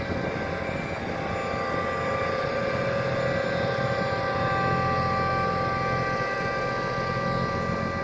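Caterpillar single-drum road roller's diesel engine running steadily as the roller is driven, with a steady high whine over it.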